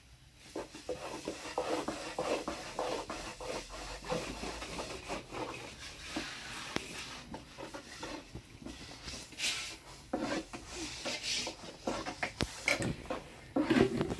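Irregular rubbing and scraping with many small clicks and light knocks, as of things being handled by hand.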